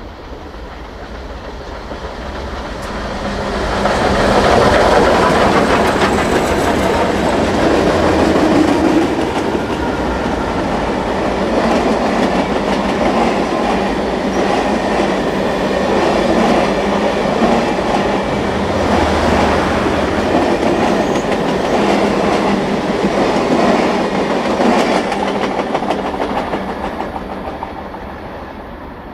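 Union Pacific Big Boy 4014 steam locomotive and its train passing by, with the clatter of wheels over the rails. It builds over the first few seconds, stays loud for about twenty seconds, then fades near the end.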